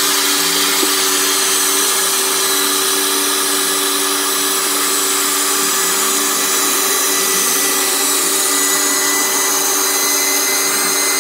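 Built-in electric air pump of a Bestway inflatable single air bed running steadily, blowing air in to inflate the mattress: an even whir with a faint steady hum under it.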